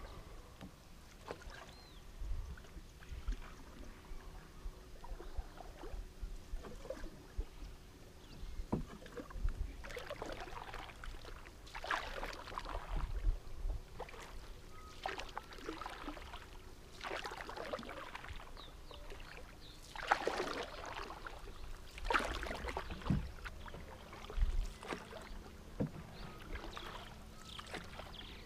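Canoe paddles dipping and pulling through calm water, a swishing splash with each stroke every second or two, the strokes becoming stronger about a third of the way in.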